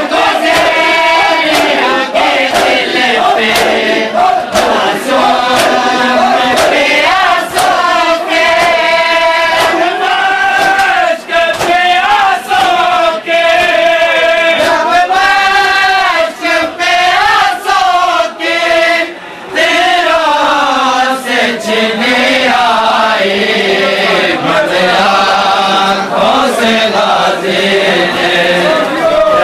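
Men's voices chanting a noha, a Shia mourning lament, in chorus, loud and sung to a bending melody. A steady rhythm of sharp slaps from chest-beating (matam) keeps time, about one and a half a second.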